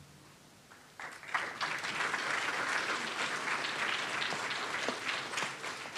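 Audience applauding, starting about a second in and easing off slightly toward the end.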